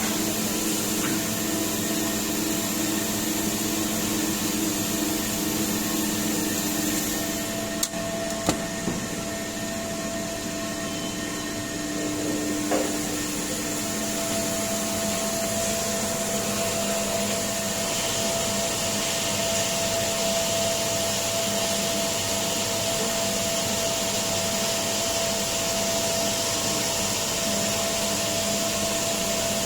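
Brush washing machine running: a steady machine hum and hiss, broken by a couple of sharp knocks about a quarter of the way in, with a brighter hiss joining a little past halfway.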